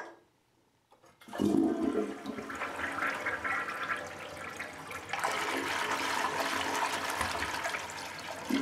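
Toilet flushing: a short click, then about a second in water rushes into the bowl and swirls down the drain, swelling again about halfway through.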